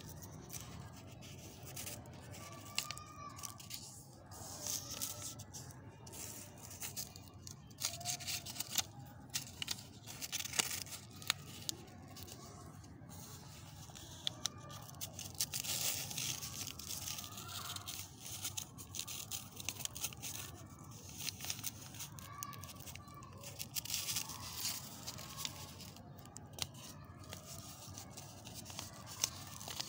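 A sheet of paper rustling and crinkling as hands handle and fold it, in uneven crackles and scrapes with sharp ticks and short pauses.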